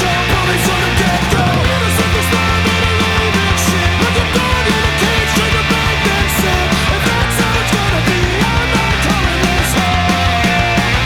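Loud rock music with distorted guitars, a steady bass line and regular cymbal hits.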